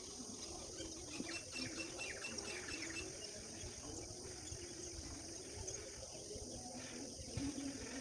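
Birds chirping and singing, with a run of quick chirps in the first few seconds, over a steady high-pitched background hum.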